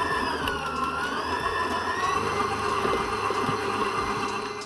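Electric stand mixer running, its flat beater working thick cookie dough: a steady motor whine that wavers slightly in pitch, then cuts off suddenly at the end.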